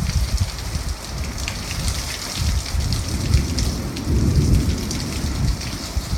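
Heavy rain falling steadily, with fine drop ticks in its hiss, and a low rumble of thunder that swells about halfway through.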